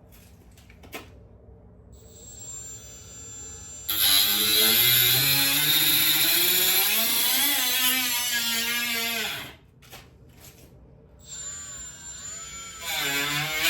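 Handheld power tool working a new body panel: it whines up, runs loud under load with its pitch dipping and recovering as it bites, and stops, then starts again for a second pass near the end.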